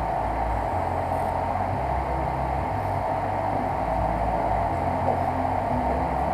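Prusa i3 3D printer running a print: a steady fan whir under low stepper-motor hums that jump to a new pitch every half second or so as the print head changes moves.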